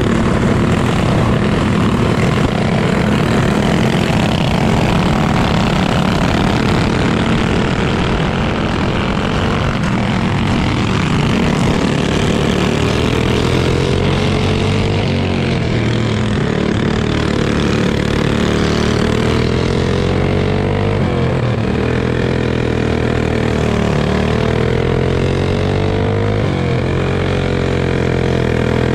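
Small go-kart engine running hard, heard from the kart's own seat, with other karts' engines alongside. Its pitch dips and climbs again several times, as the kart slows for the turns and accelerates out of them.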